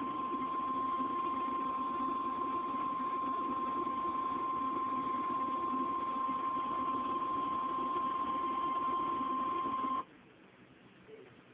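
NOAA Weather Radio warning alarm tone, the single 1050 Hz tone that announces a warning broadcast: held steady for about ten seconds over radio hiss, then cut off suddenly.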